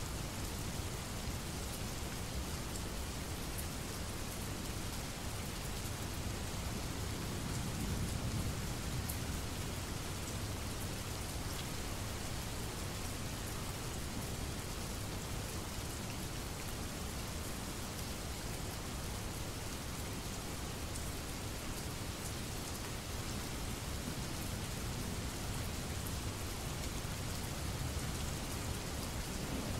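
Steady rain falling, with a low rumble of distant thunder swelling about eight seconds in.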